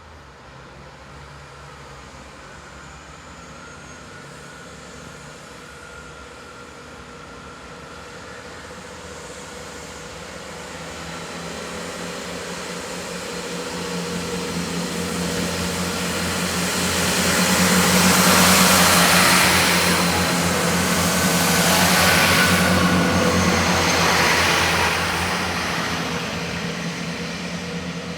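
A train approaching and passing, its engine and wheel noise growing louder for about two-thirds of the time, then fading near the end.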